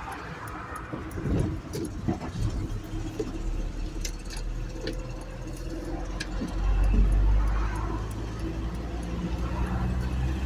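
Iveco Daily truck's diesel engine running as the truck drives, heard from inside the cab, with light rattles and clicks. The engine grows louder about six and a half seconds in as the truck pulls ahead.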